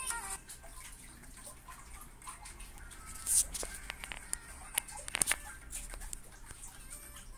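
Quiet music leaking from the earcups of Sennheiser HD 450BT headphones, with a few sharp clicks about halfway through.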